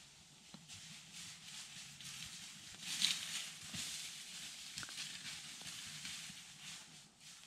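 Footsteps crunching and rustling through dry pine needles and fallen leaves on a forest floor, in an irregular walking rhythm, loudest about three seconds in.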